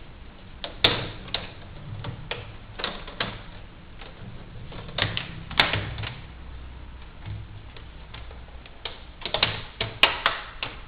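Plastic clicks and snaps of a laptop screen's front bezel being pressed and clipped back onto the display lid, coming irregularly, with sharper snaps about a second in, around the middle and near the end.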